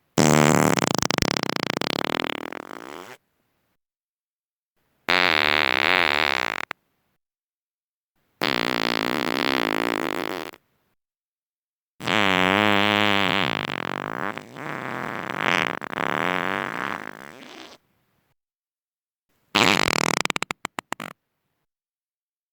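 Five human farts, one after another with dead silence between: the first about three seconds long, the fourth the longest at nearly six seconds with a wavering pitch, and the last breaking up into a quick sputter of short pops.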